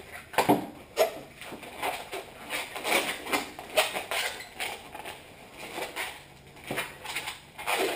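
Long latex modelling balloon being twisted and shaped into a snake: a string of short, irregular squeaks and rubbing sounds as the rubber is wrung and handled.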